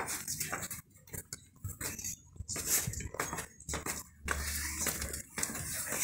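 Irregular clinks, knocks and rustles of small hard objects being handled.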